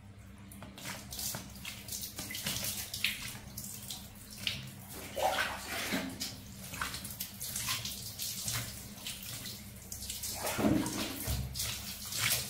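Bath water splashing and trickling in irregular bursts, a little louder about five and ten seconds in.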